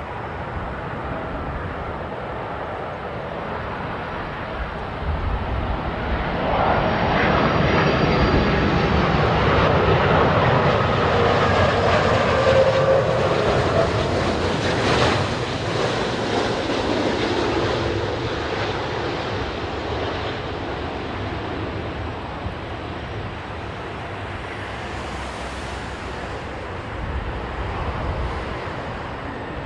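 Jet airliner's engines passing on landing approach: the sound builds over a few seconds, is loudest through the middle with a faint falling whine, then slowly fades.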